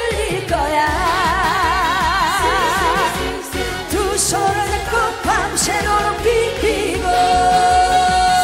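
Korean trot song with band accompaniment: a singer sings wordless runs with a wide wavering vibrato, then holds a long steady note from about seven seconds in, as the song closes.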